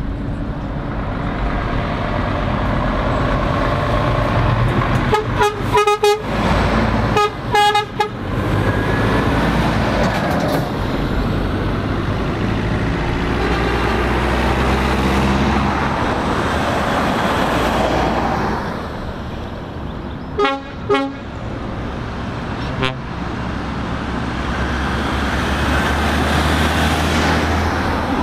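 Lorries and cars going round a roundabout, engines running and tyres on the road, with a lorry's horn tooting in quick short bursts about five and seven seconds in, and again about twenty and twenty-three seconds in.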